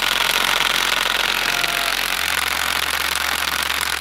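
DeWalt 18-volt cordless impact driver hammering steadily on a car wheel's lug nut through a socket adapter, failing to break it loose.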